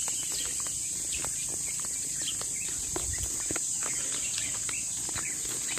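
A steady, high-pitched chorus of insects in roadside vegetation, with scattered light clicks of footsteps on the road.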